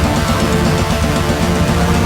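Orchestral-symphonic black metal playing loud and dense: fast, busy drumming and distorted guitar under held orchestral-keyboard chords.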